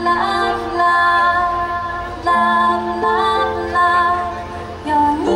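Woman singing a slow pop song over instrumental accompaniment, holding each note for about a second over sustained chords.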